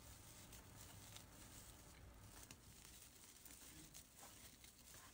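Near silence, with faint rustling and small soft ticks of a crochet hook working glittery scrubber yarn.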